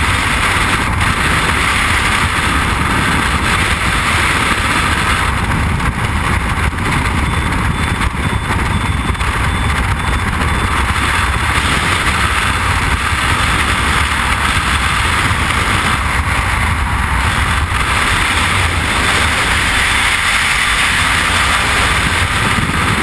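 Freefall wind rushing over a helmet-mounted camera: a loud, steady roar of wind noise with a deep low rumble.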